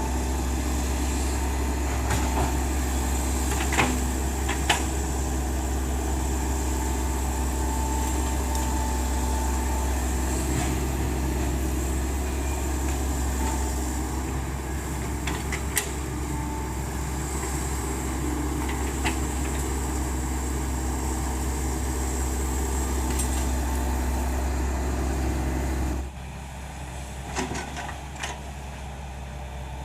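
Diesel engine of a Hitachi Zaxis 110 hydraulic excavator running steadily, with a thin hydraulic whine and a few sharp knocks. Near the end the sound drops suddenly to a lower level.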